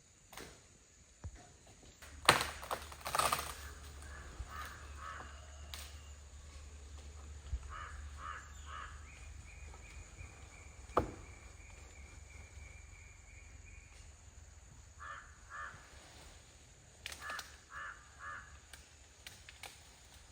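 Crows cawing in short runs of three or four caws, repeated several times. A few sharp knocks stand out, the loudest about two seconds in and another near the middle.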